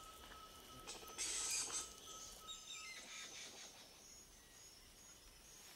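Rainforest ambience of birds and insects: a steady high tone that stops about three seconds in, a short rustling burst about a second in, and a bird call of quick notes falling in pitch, with faint high insect tones after.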